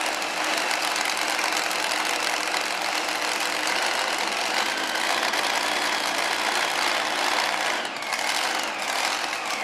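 Supercharged engine of a two-wheel-drive pulling car idling steadily.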